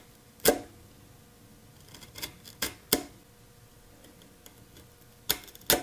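A chisel pressed down through the thin end of a small cherry wedge on a wooden workbench, chopping off its sharp tip: a handful of sharp, crisp cuts, one about half a second in, three close together around two to three seconds, and two near the end.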